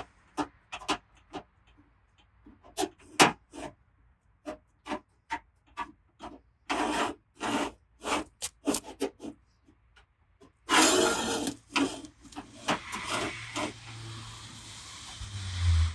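Paintless dent repair work on a car body panel: a string of short rubbing and scraping strokes, some sharp and tick-like, with a longer scrape about eleven seconds in.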